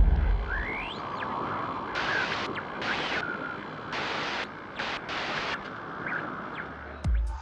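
Glitch sound effect for a GoPro logo intro: a deep boom fading out, then a hiss broken by several short bursts of harsh digital static and a few quick whistling sweeps. A dance beat with heavy kick drums starts near the end.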